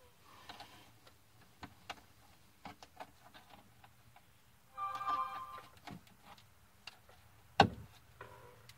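Plastic plug-in terminal connectors being handled and pushed into the sockets of a Victron Cerbo GX: scattered light clicks, a short squeak about five seconds in, and one sharp, loud click near the end.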